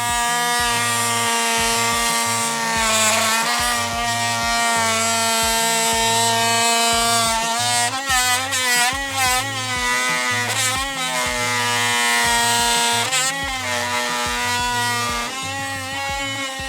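Oscillating multi-tool running under load while cutting: a steady, high buzzing whine whose pitch wavers and dips several times as the blade bites, with background music underneath.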